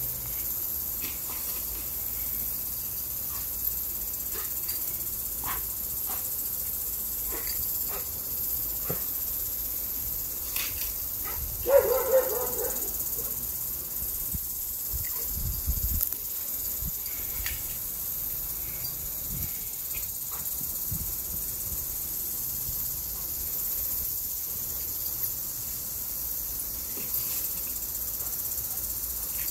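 A dog playing at a lawn sprinkler barks once near the middle, over a steady high hiss, with scattered faint clicks and a low thump a few seconds after the bark.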